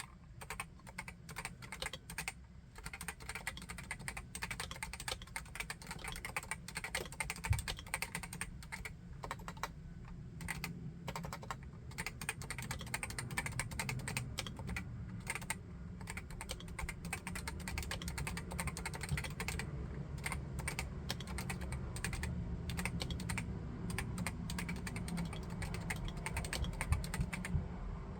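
Steady, rapid typing on a Realforce RGB TKL keyboard with Topre electrostatic capacitive switches: 45 g uniform rubber-cup keys being pressed and bottoming out in quick succession.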